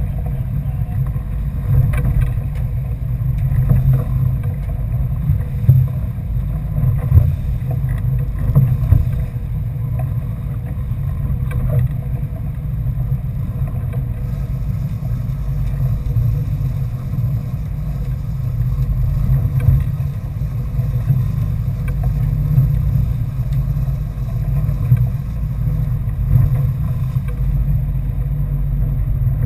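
Fishing boat's engine running steadily under way, with wind and water rushing past the hull and a few brief knocks in the first half.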